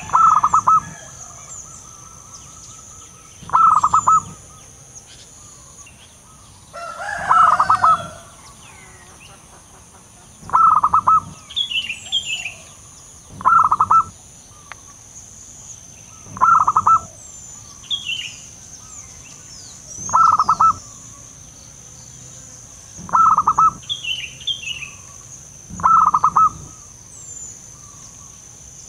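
Zebra dove (perkutut) cooing again and again, a short burst of quick notes about every three seconds. Fainter high chirps of small birds and a steady high insect hiss sound between the coos.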